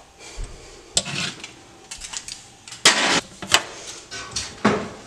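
A metal baking sheet being put into an oven, clanking against the oven rack and door: several sharp metal clanks and knocks, the loudest about three seconds in.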